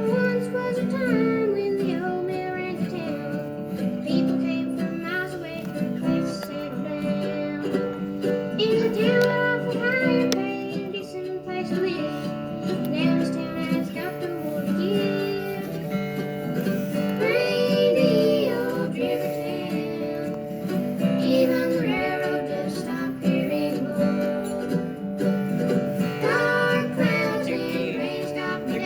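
A live bluegrass band playing a song.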